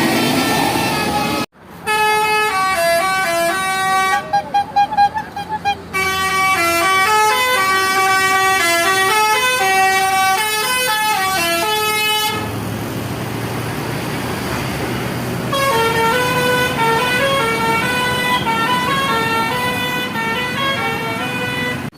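Basuri musical vehicle horn playing melodies note by note, in loud stepped runs of held tones. The tune cuts off sharply about a second and a half in, then starts again. Around twelve seconds it stops, leaving traffic noise, and another melody starts a few seconds later.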